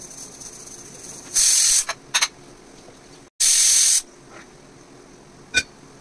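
Two loud bursts of hissing, each about half a second long, about two seconds apart, with a short sputter between them and a single click near the end.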